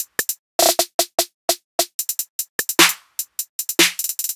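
Intro music: a beat of short, sharp percussive hits in quick runs, broken by brief silences.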